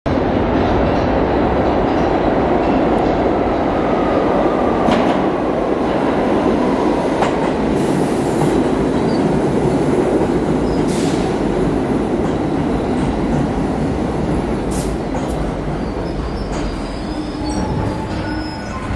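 R62A subway train pulling into an underground station: a loud, steady rumble of steel wheels on the rails, with scattered clicks. It grows quieter as the train slows to a stop near the end.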